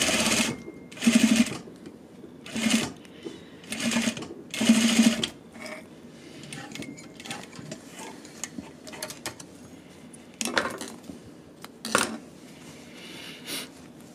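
Single-needle sewing machine stitching a zipper into rib knit in short stop-start bursts, about five in the first five seconds.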